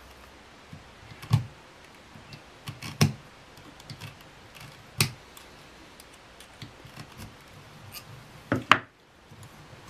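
A few sharp, scattered clicks and taps of steel needle-nose pliers gripping a needle and pulling thread through leather during hand-stitching, with a louder double click near the end.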